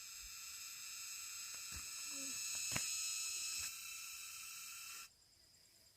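Steady, high-pitched shrilling of insects, swelling a little toward the middle and cutting off suddenly about five seconds in, with a single sharp click near the middle.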